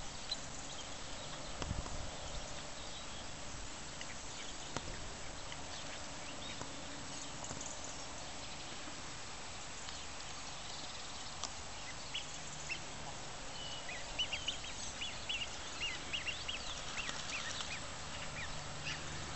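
Ducks calling on and off over steady outdoor background noise, with a quick run of short high calls in the last few seconds.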